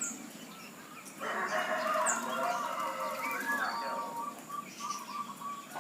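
A bird calling: one long call of several linked notes starting about a second in and running for about four seconds, with a couple of brief high chirps from a smaller bird.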